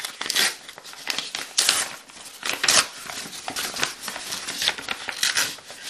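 A paper mailing envelope being torn open by hand: a run of irregular ripping and crinkling paper sounds, with several louder tears.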